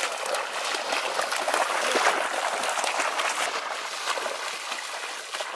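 Shallow floodwater sloshing and splashing as hunters wade through it in waders, a steady run of small splashes that stops abruptly at the very end.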